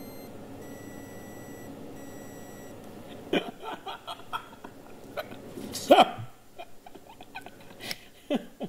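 A stylophone circuit printed in graphene ink, with its wires soldered to the ink, plays three short high-pitched electronic beeps in the first three seconds: the soldered joints are conducting. A man then laughs in bursts, loudest about halfway through.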